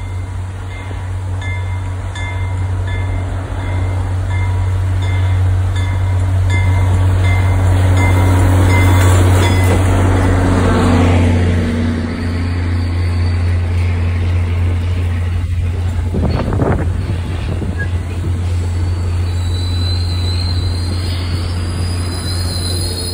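MBTA commuter rail train passing close by: the diesel locomotive's rumble grows as it approaches, peaks about 9 s in and drops in pitch as it goes by, then bilevel coaches roll past. A bell rings at a steady pace during the approach, and high-pitched wheel squeal starts in the last few seconds.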